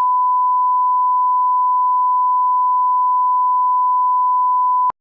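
Steady 1 kHz reference test tone, the line-up tone that runs with colour bars, held at one pitch and cutting off abruptly with a click near the end.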